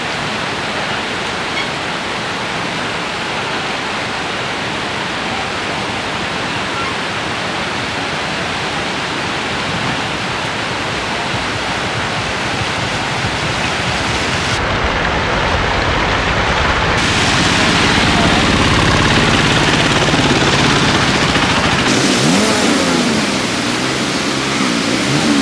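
Floodwater rushing steadily across a road. In the latter part an autorickshaw engine runs under load as the three-wheeler pushes through the water, revving up and down near the end.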